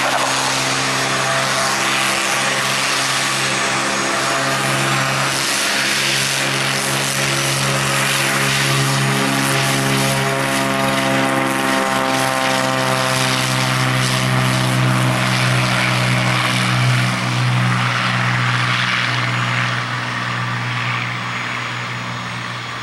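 Cessna Corvalis's six-cylinder piston engine and propeller at take-off power during the take-off roll. The pitch drops as the aircraft passes about halfway through, and the sound fades near the end as it lifts off and climbs away.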